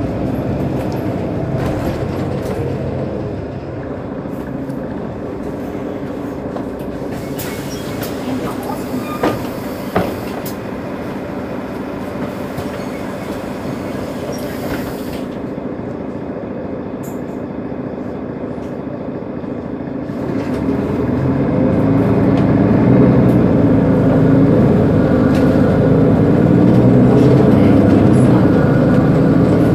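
Mercedes-Benz Citaro G C2 articulated city bus standing with its diesel engine idling in a steady hum. A hiss comes in about a quarter of the way through, with two sharp clicks partway through. About 20 seconds in, the engine note grows deeper and louder and stays up.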